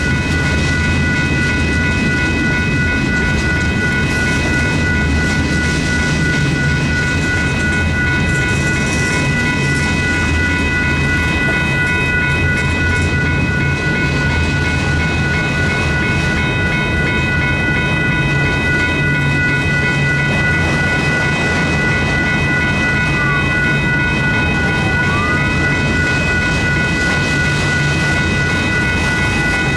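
Freight train rolling through a grade crossing, its cars giving a steady rumble and clatter on the rails. Over it the crossing signal's bell rings, an even, pulsing high tone.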